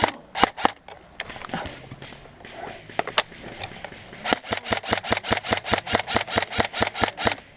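Airsoft guns firing: scattered single shots, then from about four seconds in a steady stream of rapid shots, about seven or eight a second, until near the end.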